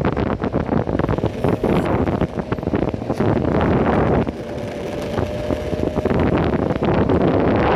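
Wind buffeting the phone's microphone over the rumble of an electric skateboard's wheels rolling on pavement, with many small clicks and rattles. A faint steady whine comes in about halfway through, and the noise drops a little around then.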